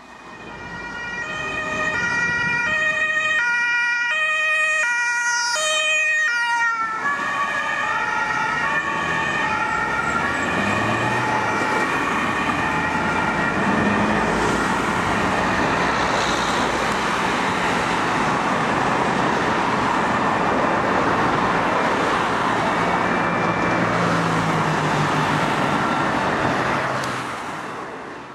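Ambulance two-tone siren (German Martinshorn), switching back and forth between two pitches at a steady pace. About seven seconds in, a loud steady rush of road traffic noise takes over, with the siren going on more faintly beneath it.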